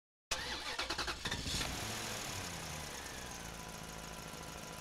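A vehicle engine: a rapid clatter of ticks for about the first second, then running steadily with a slowly falling pitch. It cuts off abruptly.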